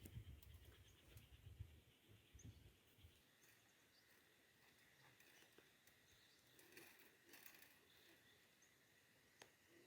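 Near silence: faint outdoor ambience, with a low rumble in the first three seconds and a few faint, high, brief chirps.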